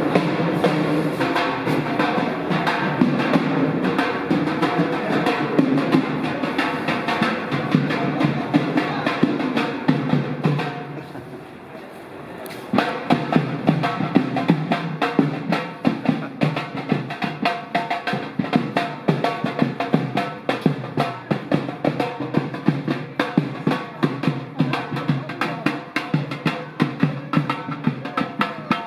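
Live music dominated by drums: rapid, loud drum strikes over other instruments. It thins out briefly about ten seconds in, then comes back sharply with hard, rhythmic beats.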